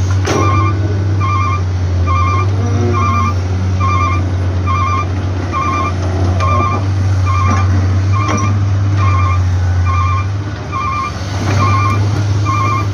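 Excavator diesel engine running steadily while loading a truck, with a warning beeper sounding a short multi-pulse beep about every 0.7 seconds. A few separate knocks stand out along the way.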